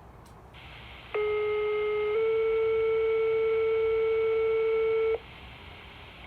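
Two-tone sequential pager alert over a radio channel: the carrier hiss opens, then one steady tone sounds for about a second and steps straight up to a slightly higher tone held about three seconds before cutting off, leaving the hiss. This is the tone pair that sets off the off-duty personnel's pagers in the evening pager test.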